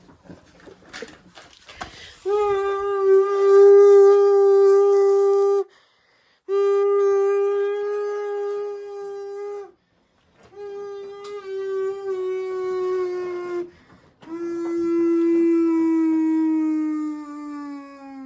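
Washing machine's electric motor whining at a steady high pitch, switched on and cut off four times; in the last two runs the whine drops steadily in pitch.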